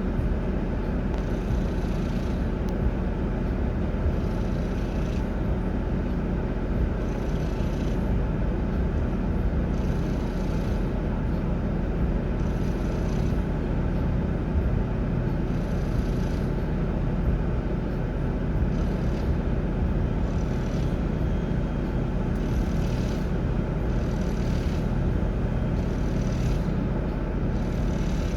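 Steady low rumble of a running vehicle engine, with short hissing bursts recurring every couple of seconds.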